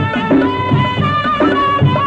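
Instrumental interlude of a 1970s Malayalam film song: a melody line over a steady rhythmic beat.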